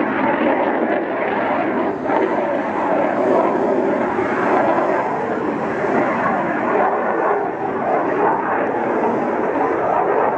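Jet engine noise from a Blue Angels F/A-18 Hornet flying overhead, a loud steady rushing sound that holds without a break.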